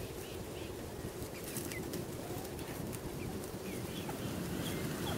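Soft bird calls: low cooing with a few brief, high chirps scattered through.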